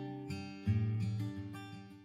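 Background music on acoustic guitar: plucked notes ringing, a new strummed chord about two-thirds of a second in, then fading out toward the end.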